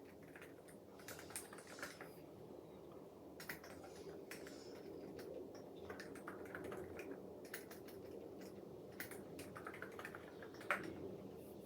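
Typing on a COX CF75 mechanical keyboard with orange switches: irregular runs of key clicks, with one louder keystroke near the end.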